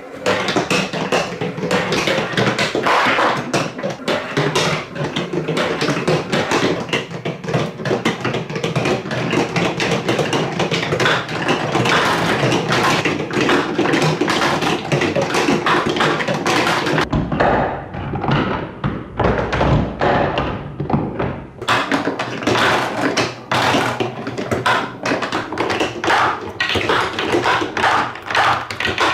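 Many marbles clattering down TrixTrack plastic wave-slope stairs, a dense stream of quick taps and clicks. About 17 seconds in, the clatter turns duller with more low rumble for some four seconds, then the bright clicking resumes.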